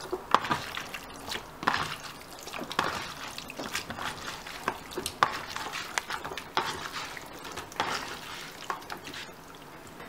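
Hands mixing beef, sliced bell peppers and a soy-sauce marinade in a plastic food container: irregular wet squelching with sharp little clicks, dying away near the end.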